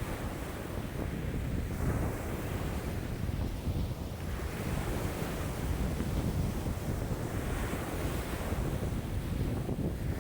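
High lake waves sloshing and breaking in a strong wind of about 5 m/s, the washes swelling and fading every few seconds. Wind buffets the microphone as a steady low rumble underneath.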